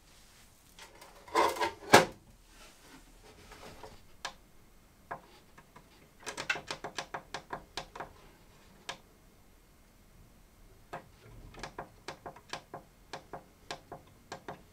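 Repeated sharp clicks of the SUNLU FilaDryer S1's control button being pressed to step its settings up, the temperature to about 55 °C and the drying timer toward 12 hours. The clicks come first in a quick run of a dozen or so, then singly, then steadily about two a second near the end. Early on there is a rustle of handling and one loud knock, the loudest sound, as the filament coil goes into the dryer.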